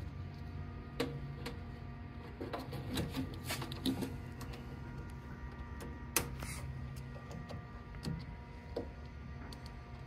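Screwdriver clicking and scraping on the screw terminals of a transformer's terminal block. There are scattered small clicks, a sharper one about six seconds in, over a steady low hum.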